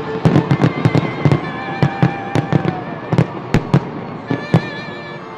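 Fireworks going off in a rapid, irregular string of sharp bangs, several a second, thinning out near the end.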